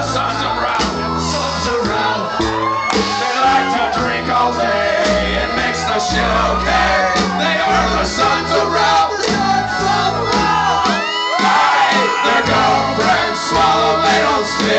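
Live rock band playing loud: electric guitars and a steady low bass line under several male voices singing and shouting together.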